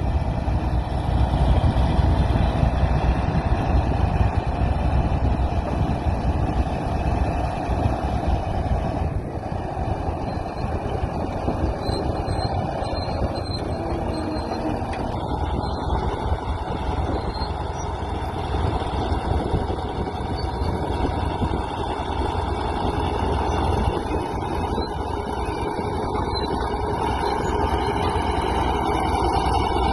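Komatsu D85 bulldozer's diesel engine running steadily, a little louder in the first several seconds and then easing slightly.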